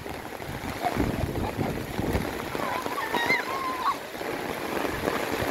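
Heavy rain falling steadily, with footsteps on a wet gravel path and, about three seconds in, a short wavering pitched call.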